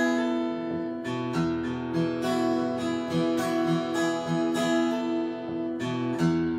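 Acoustic guitar strummed in the instrumental outro of a country song, with a last strum near the end left ringing.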